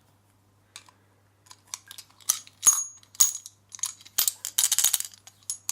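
Small metal clicks, clinks and rattles as an old lever padlock and lock-picking tools are handled. They start sparse and come thick and fast in the second half, with one short metallic ring partway through.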